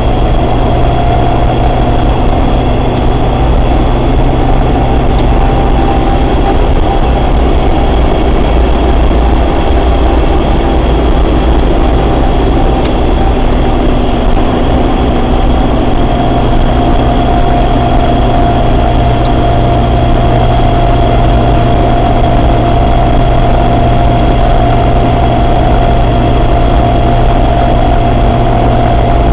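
Suzuki Samurai drivetrain running steadily with a constant high whine over the engine noise: the strange noise from its transfer case. The whine shifts slightly lower in pitch about halfway through.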